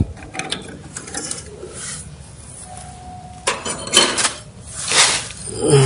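Handling noise from working inside an open desktop computer case: scattered light clicks and several short rustling scrapes among the cables and connectors, the loudest bunched in the second half.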